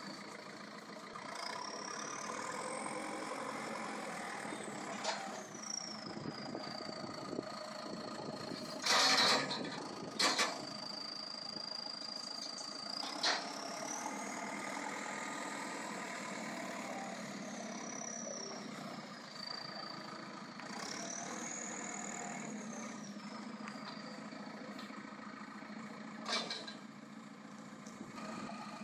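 JCB 3CX backhoe loader's diesel engine running under work, with a high whine that rises and falls several times as the machine operates. Several sharp knocks sound, the loudest about nine seconds in.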